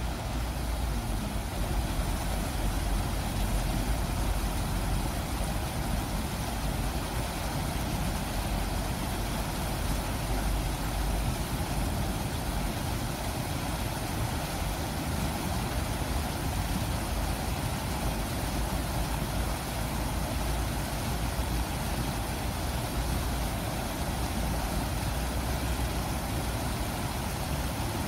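Shallow stream water rushing and splashing steadily over rocky riffles and small stone cascades, with a steady low rumble of city traffic underneath.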